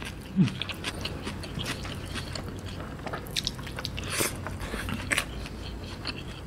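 Close-miked mouth sounds of a person eating rice and coconut-milk curry by hand: wet chewing and lip smacks with scattered small clicks, and a short low hum about half a second in.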